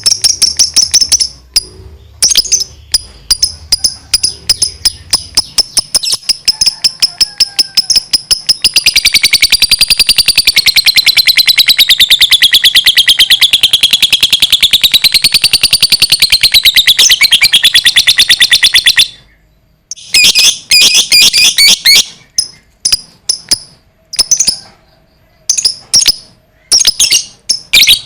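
Lovebird calling: quick sharp chirps, then a long rapid chattering trill (the 'ngekek panjang') of about ten seconds that wavers up and down in pitch, then short bursts of chirps again.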